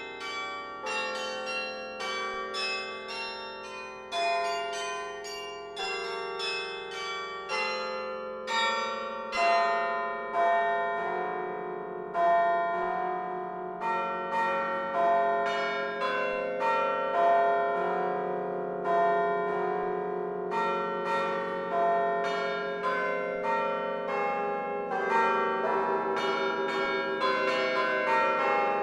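Carillon bells of the University of Chicago's Rockefeller Memorial Carillon, played from the baton keyboard and pedals. A quick run of struck notes gives way to fuller chords with deeper bells, which grow louder and ring on under the melody.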